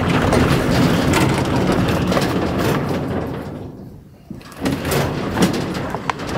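Plastic casters of a Rösle Videro gas grill rolling over wooden decking boards, a continuous rumble. It dies away briefly about four seconds in, then starts again with a few sharp clicks as the grill is rolled back.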